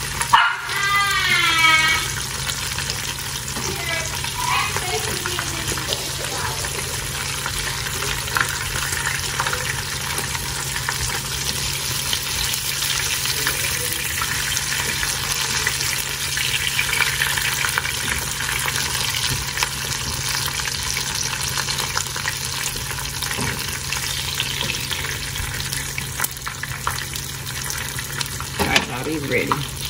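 Rolled cheesy chicken tacos frying in hot oil in a skillet, a steady sizzle.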